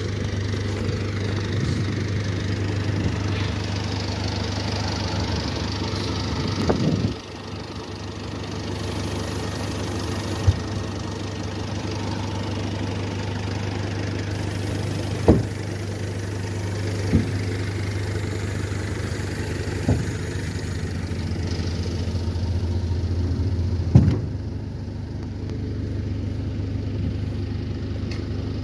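Engine of a BAW Fenix dump truck running steadily while the hydraulic ram tips the dump body. A handful of sharp knocks stand out over the engine, the loudest near the end.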